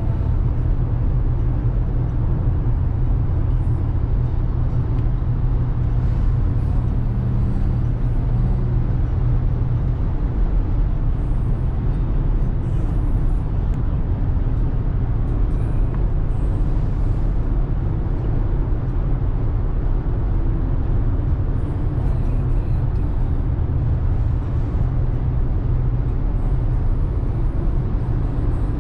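Car driving at highway speed, heard from inside the cabin: a steady low drone of tyre, road and engine noise.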